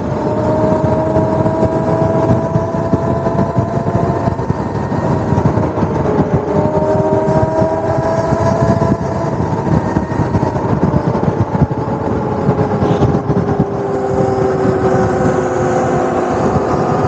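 Modified Razor electric mini dirt bikes at speed: a steady rush of wind and road noise with the thin whine of the electric motors over it, its pitch gliding slowly up and then down as the bikes speed up and ease off.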